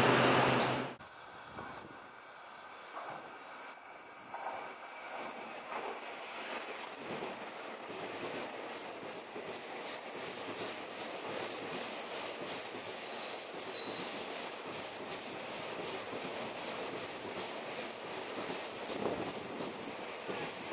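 Taiwan Railway train running past on the rails: a steady rumble of wheels with faint, irregular clicks, under a constant very high-pitched whine. The sound starts abruptly about a second in.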